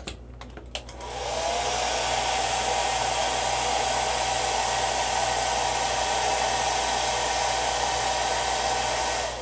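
Handheld hair dryer blowing: a few clicks, then about a second in the motor starts with a rising whine that settles into a steady tone over the rush of air, and near the end it is switched off and the whine falls away.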